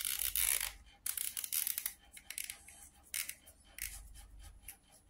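Fingers rubbing and parting long hair close to the microphone: several bursts of scratchy rustling with small crackles.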